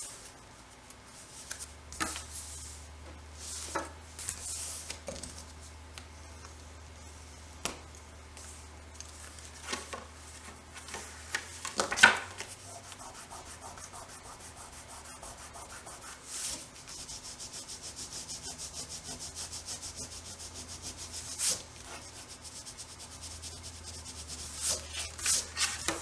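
Paper and card being rubbed and handled by hand, with scattered short scrapes and taps. Just past the middle comes a fast, even back-and-forth rubbing that lasts about five seconds.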